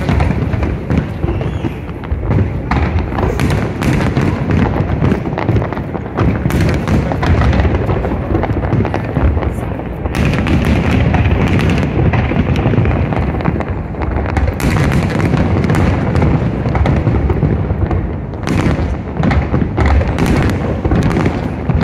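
Aerial fireworks exploding in a continuous, loud barrage: deep booms overlapping with many sharp cracks and bangs.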